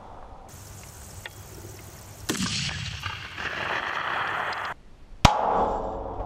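A Dragunov SVD sniper rifle shot about two seconds in, followed by a long noisy tail that cuts off abruptly. About five seconds in comes a sharp, loud clang as a bullet strikes a steel plate target, and the plate rings on afterwards.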